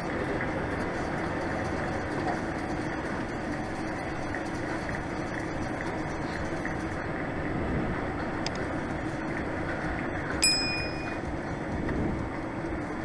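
Steady rumble of a DAF XF truck's engine and running gear heard from inside the cab. A single short metallic ping rings out about ten seconds in.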